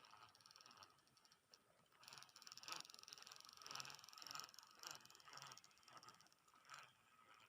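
Fishing reel being cranked to retrieve line, a faint fast ratcheting whir in several short bursts from about two seconds in.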